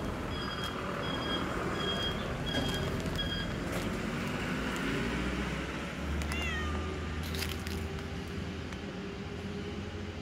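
A cat gives a short falling meow about six seconds in, over a steady low outdoor hum. A high chirp repeats about twice a second during the first few seconds.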